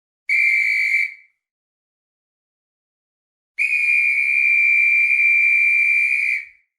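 Referee's whistle blown twice: one short blast of under a second, then, after a pause of about two and a half seconds, a long steady blast of nearly three seconds.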